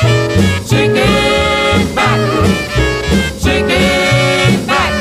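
Instrumental break of a swing-era jump-blues record: a horn section of saxophone and brass playing riffs with bent notes over a steady pulsing bass line.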